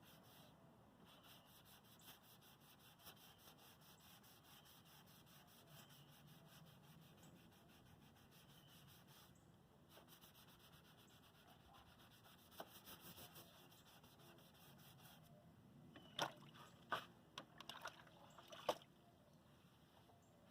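Faint hand wet sanding: 320-grit sandpaper rubbed over wet primer and clear coat in quick, even back-and-forth strokes, with a few louder scuffs near the end.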